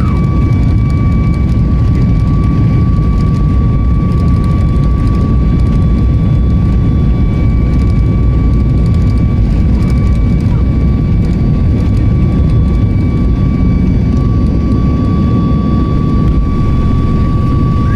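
Airliner cabin noise: a loud, steady rumble of engines and airflow with a thin, steady high whine over it.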